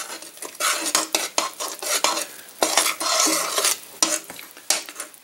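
Spoon stirring cocoa powder into melted butter in a stainless steel saucepan, scraping against the pan in repeated uneven strokes.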